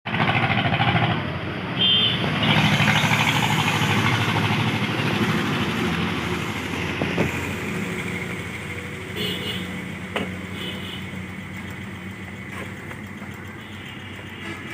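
A motor vehicle's engine running, loudest in the first few seconds and slowly fading away, with a couple of faint clicks.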